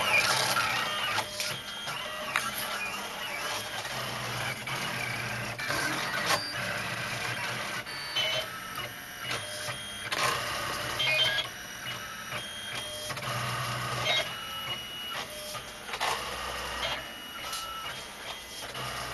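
Ultimaker 3D printer at work: its stepper motors whine in short steady tones that keep jumping from one pitch to another as the print head moves, with quick clicks between moves.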